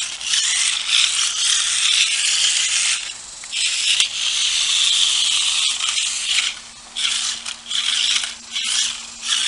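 Sharper Image transforming robot RC car driving, its small electric motor and plastic gears whirring and rattling in bursts of a second or two that stop and start again as it is steered by remote.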